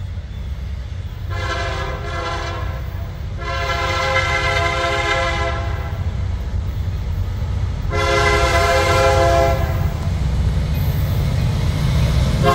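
Amtrak locomotive horn sounding a chord of several tones in long blasts: three in a row, each about two seconds or more, with a fourth starting at the very end. A steady low rumble of the moving train runs underneath.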